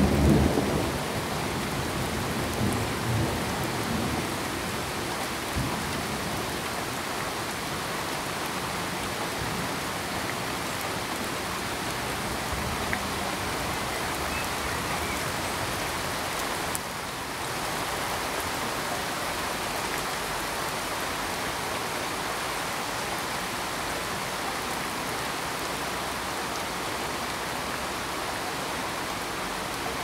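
Steady rain, with a roll of thunder right at the start that rumbles low and fades over the next few seconds. The rain briefly drops in level for a moment a little past halfway.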